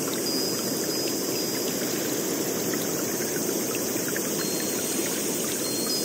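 Running water, a steady trickling and splashing like a small stream, with many small drips and plinks through it.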